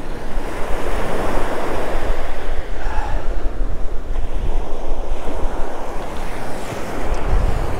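Ocean surf breaking and washing up the beach in a steady rush, with wind buffeting the microphone in a low rumble.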